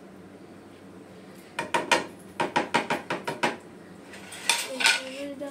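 Quick run of light taps, about five a second, as a small plate is knocked against a non-stick frying pan to shake cornflour off into it. Two sharper clinks follow near the end, one ringing briefly.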